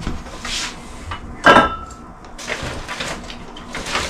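Groceries being unpacked on a kitchen counter: a paper grocery bag rustling and items being handled, with one sharper knock about a second and a half in.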